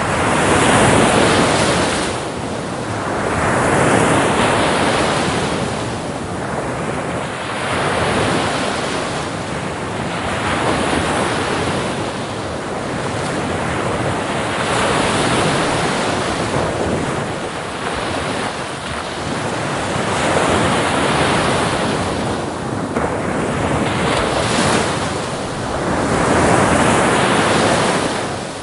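Sea waves breaking and washing onto the shore, the surf swelling and easing again every few seconds.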